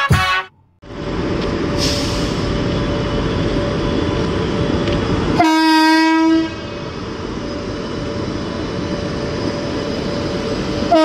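Indian Railways WAP-7 electric locomotive and its coaches rumbling steadily as the train pulls out of the station. The locomotive's horn sounds one steady blast of about a second midway, and a second blast begins at the very end.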